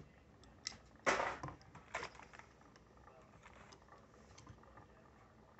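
Quiet handling of a small metal diecast toy car: a few faint clicks and one brief rustle about a second in.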